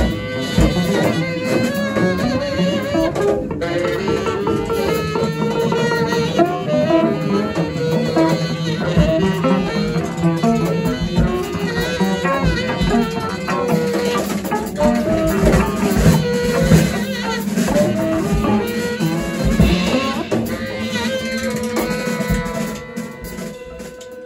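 Live acoustic quartet of tenor saxophone, cello, double bass and drums playing together, dense with drum strikes. Near the end the playing thins out and gets quieter, leaving one held note.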